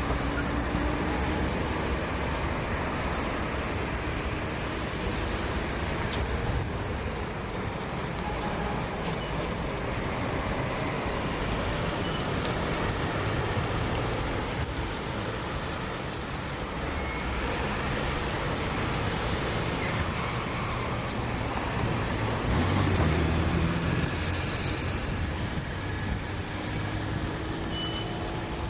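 Steady street traffic with trolleybuses and cars passing. A louder low rumble comes about three-quarters of the way through, and a faint slowly rising whine is heard near the start and again near the end.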